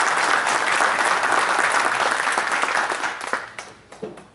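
Audience applauding in a hall, many hands clapping, dying away over the last second or so.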